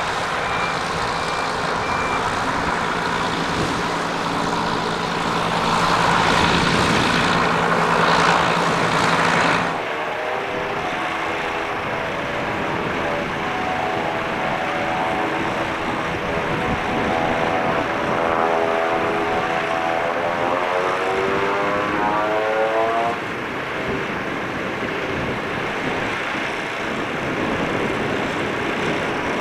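A Piper PA-31 Navajo's twin piston engines and propellers running at power, blowing snow off the airframe. The engine note swells for a few seconds, then changes suddenly about ten seconds in. After that the engines are heard from farther off, with a pitch that wavers and slides, and the sound shifts again about three-quarters of the way through.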